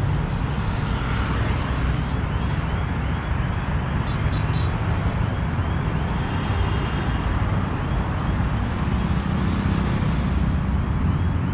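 Steady road traffic noise from cars and motorcycles passing on a multi-lane road, a continuous rumble with no sudden events.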